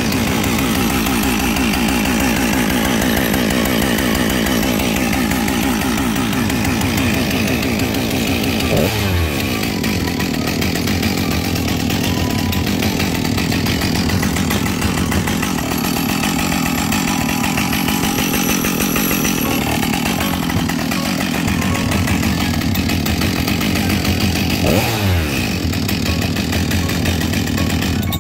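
Husqvarna 572XP 70cc two-stroke professional chainsaw running steadily on a test run after a full rebuild of its damaged parts, with a sweeping drop in pitch twice, about 9 and 25 seconds in.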